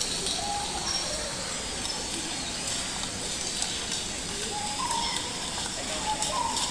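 Steady hiss of background noise, with a few faint, brief pitched sounds.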